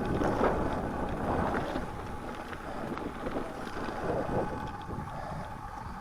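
Mountain bike tyres rolling and crunching over a snowy, partly frozen sandy trail, with wind buffeting the microphone. The noise is loudest in the first second or two and slowly eases off.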